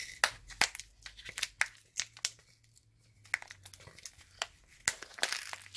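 Plastic pouch of frozen-solid yukgaejang crinkling and crackling as it is handled and turned over, in a run of irregular crackles with a short lull about halfway.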